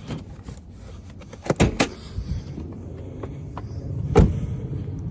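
Acura TSX hood being popped open: a quick cluster of sharp clicks and clacks from the release and latch, then one louder knock about four seconds in.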